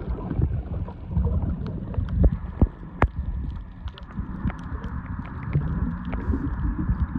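Muffled underwater sound picked up by a submerged camera: a low, uneven rumble of water moving around it, with many short sharp clicks scattered throughout.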